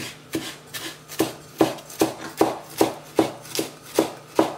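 Chef's knife chopping fresh dill on a plastic cutting board: an even rhythm of blade strikes on the board, about two and a half a second.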